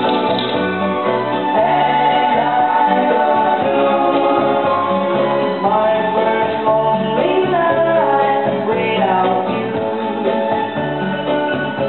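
Vinyl record playing vocal music, with singing over instruments and a moving bass line, reproduced through a Denon DL-103R moving-coil phono cartridge.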